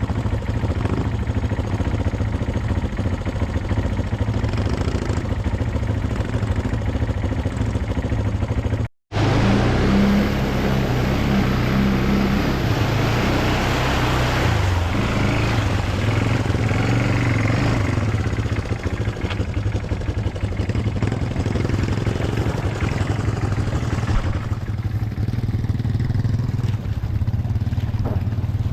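ATV engines running, a steady low hum with the pitch shifting as the throttle changes; the sound drops out for a moment about nine seconds in.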